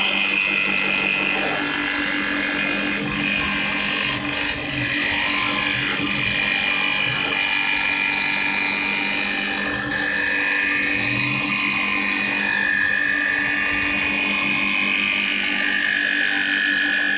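CNC wood lathe's 3.5 kW air-cooled spindle running with a high-pitched whine over a steady low hum, its pitch dropping in steps a few times.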